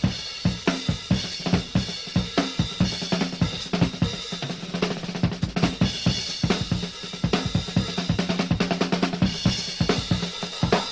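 Drum kit played fast, with bass drum, snare, cymbals and hi-hat, over a held low note.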